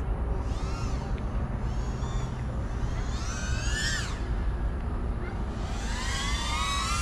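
FPV quadcopter's brushless motors whining, their pitch rising and falling with the throttle. There are a few faint rises and falls in the first couple of seconds, then a climbing whine that drops away sharply about four seconds in, and another long climb near the end.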